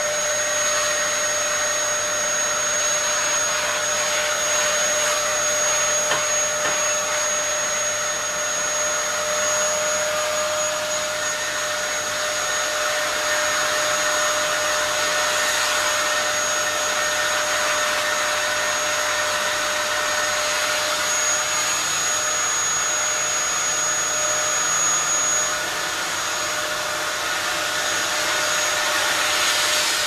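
Dyson DC07 Origin upright vacuum cleaner running continuously: a loud, steady rush of air with a high, constant whine from the motor. It is noisy. It is first pushed over carpet, then used through its hose.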